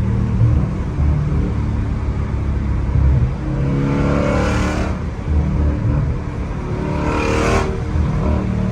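Catless Dodge Scat Pack's 6.4-litre 392 HEMI V8 exhaust rumbling on the road, with two bursts of throttle about four and seven seconds in.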